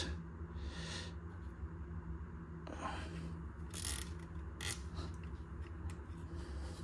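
Nylon cable tie being pulled through its ratchet around the switch's plastic tubes: a few brief ratcheting zips, roughly three, four and four and a half seconds in, among light handling of plastic parts.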